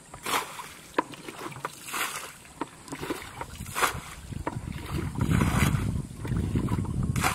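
Water splashing and sloshing in a shallow, muddy rice-field pool, in short irregular splashes about once a second. A low rumble builds in the second half.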